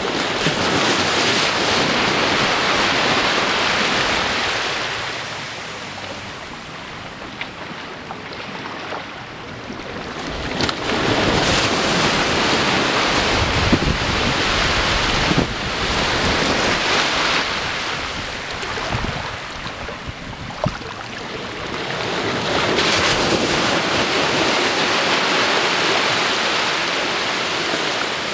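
Small waves breaking and washing up a sandy beach against low rocks: the surf swells and fades in three surges about ten seconds apart, with quieter backwash between them.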